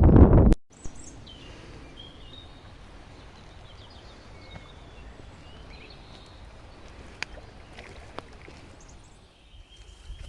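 Quiet outdoor ambience with small birds chirping now and then and two sharp clicks late on. A loud rushing noise on the microphone stops abruptly about half a second in.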